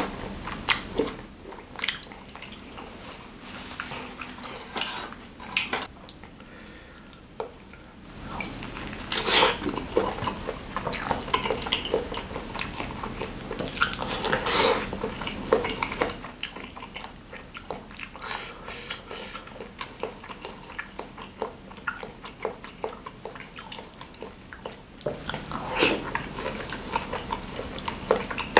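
Close-miked eating of spicy chicken noodles and meatballs: slurping noodles, biting and chewing wet, squishy mouthfuls, and a fork clinking and scraping against the bowl.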